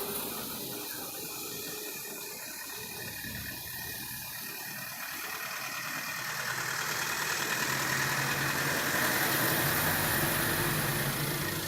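A motor vehicle's engine running against a steady rushing noise, growing louder from about halfway through.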